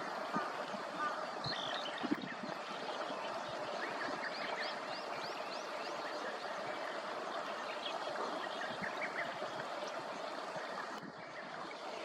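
Running water of a stream, a steady rushing, with short high bird chirps over it, a quick cluster of them about a third of the way in.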